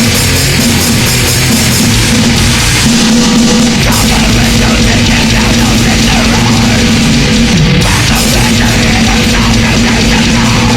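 Drum kit played at blast-beat speed along with a recorded grindcore track of distorted guitars; a held low guitar note slides down about seven and a half seconds in.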